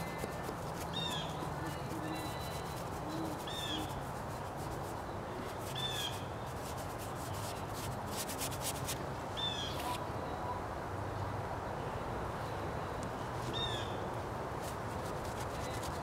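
A bird calling five times, a short high call every few seconds, over the steady scrubbing and tapping of a paintbrush working paint across a board.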